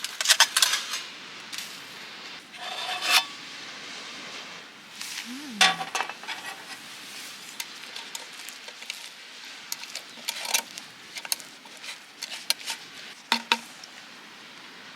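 Cooking-utensil sounds: scattered clinks, taps and scrapes of cutlery against pots and dishes over a steady soft hiss.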